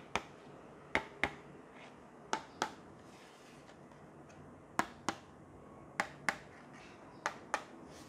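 Sharp taps on a long cardboard box as hands handle it: six pairs of crisp clicks, the two in each pair about a third of a second apart.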